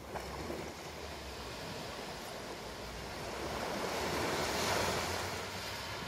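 Small waves breaking and washing up a pebble beach, a steady rush of surf that swells to its loudest about three-quarters of the way through and then eases.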